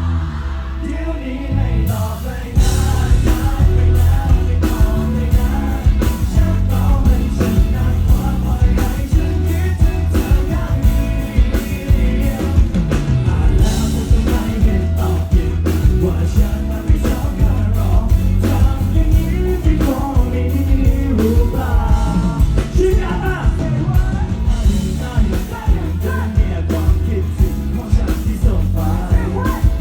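Rock song with singing and a steady beat, filling out about two and a half seconds in.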